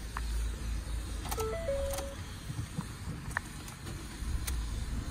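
A short three-note electronic chime from a Ford Courier's dashboard, stepping up then down, about a second and a half in. A few sharp clicks of buttons being pressed come around it and again later, as the driver works through the menu to reset the tyre-pressure warning. A low steady rumble runs underneath.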